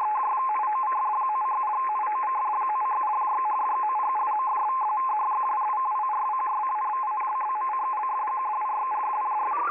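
Electronic telephone-line signal: two steady tones, one slightly higher than the other, beeping and flickering over a constant hiss with a narrow, phone-like sound. Near the end a stepped run of tones climbs rapidly in pitch.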